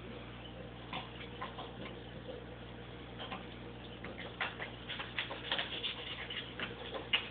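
Scattered small clicks and crackles, sparse at first and coming thicker in the second half, with one sharper click near the end, over a steady low hum.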